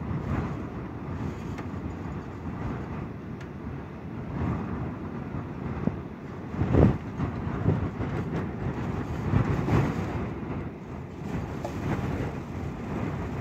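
Gusty wind with rain: a deep rushing noise that swells and eases in gusts, the strongest about seven seconds in, with a few faint ticks.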